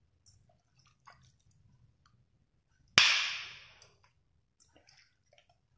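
Raw mutton pieces being handled and added into a nonstick kadai: faint wet ticks and handling noises, and one sharp knock about three seconds in that trails off over about a second.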